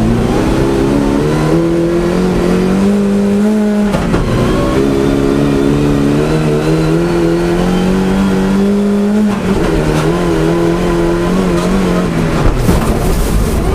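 Rally car engine heard from inside the cabin, revving up steadily under load. The revs fall sharply about four seconds in and again about nine seconds in, then sink lower near the end, where a rough hissing noise comes in.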